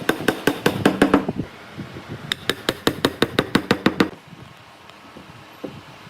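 Rapid hammer taps on wood, about six or seven a second, in two runs: one that stops a little over a second in, and a second run of nearly two seconds. After that it is quieter, with only a few faint knocks.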